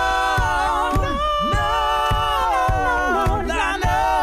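A cappella group singing a held, layered chord, with a steady low beat about two times a second.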